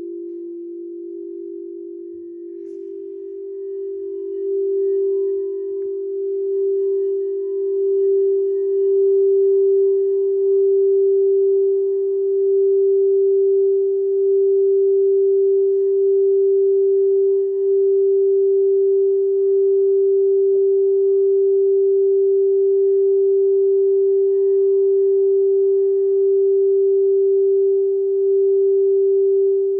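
Frosted quartz crystal singing bowl played with a mallet, giving one pure, steady tone that swells over the first several seconds and is then held, with faint higher overtones. A slightly lower tone from another bowl fades out in the first few seconds.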